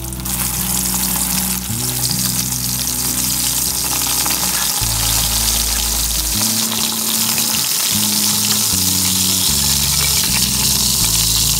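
Pieces of salted fish deep-frying in hot oil in a wok, a steady sizzle, under background music with a bass line.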